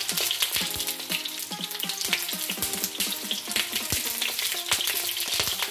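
Stuffed green capsicums frying in hot oil in a nonstick pan: a steady sizzle with dense fine crackling.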